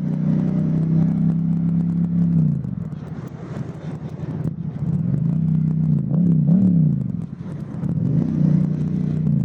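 Motorcycle engine running under the rider in slow freeway traffic. The throttle eases off about two and a half seconds in and the engine quietens, then it picks up again with a couple of short revs.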